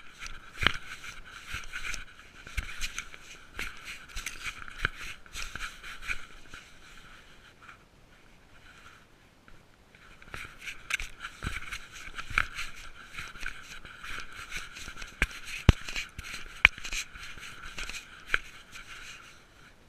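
Scraping and rubbing of a cat-mounted GoPro against the cat's fur and harness as the cat moves, with irregular sharp knocks. It quiets for a couple of seconds around the middle, then comes back.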